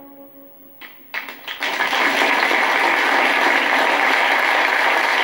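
Audience applause: a few single claps about a second in, swelling within half a second into steady, dense clapping.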